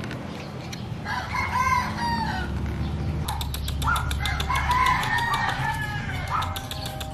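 A rooster crowing twice, each crow a drawn-out call, the second longer than the first.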